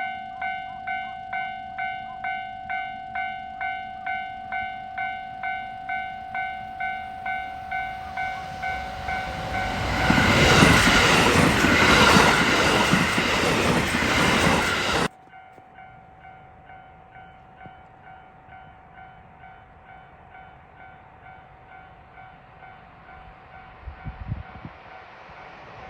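Level-crossing warning bell ringing in an even pulse, about two to three rings a second, while a train passes over the crossing with a loud rush of wheel and rail noise for about five seconds. The sound cuts off abruptly about fifteen seconds in. The crossing bell then rings on more faintly, and a rumble rises near the end as another train approaches.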